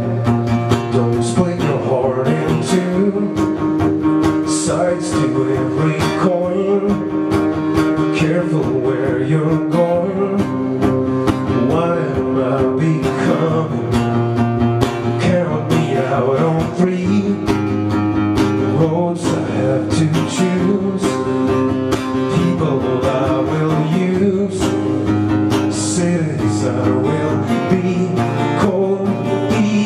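Solo acoustic performance: a man singing live to his own acoustic guitar, with steady rhythmic strumming under the vocal melody.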